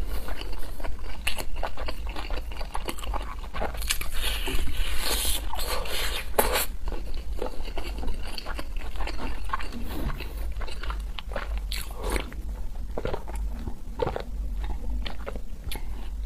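Close-miked chewing and biting of a sauce-coated fried skewer, with many small crackles and clicks and a few louder crunches about four to six seconds in, over a steady low hum.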